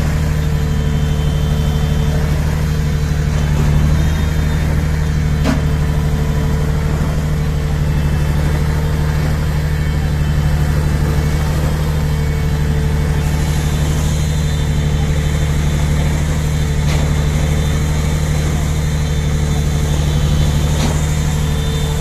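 Shotcrete spraying rig running steadily as it sprays concrete onto a rock slope: a deep, even engine drone with a hiss over it.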